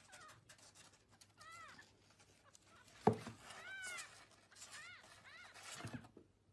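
Tiny newborn kitten giving several short, high-pitched mews, each one rising and falling. A sharp thump about three seconds in is the loudest sound, and a softer knock comes near the end.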